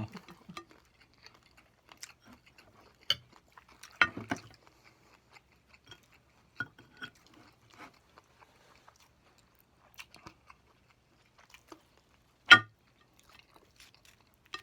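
Eating crispy fried whiting: bites and chewing with small crunches and scattered light clicks. About twelve seconds in comes one sharp, much louder click or knock.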